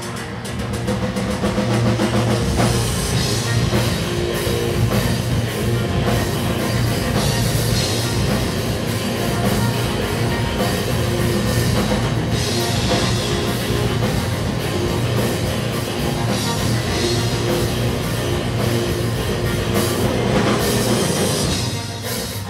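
Post-hardcore rock band playing live: an instrumental passage with electric guitars, bass, keyboard and drum kit, loud and dense, dipping briefly near the end.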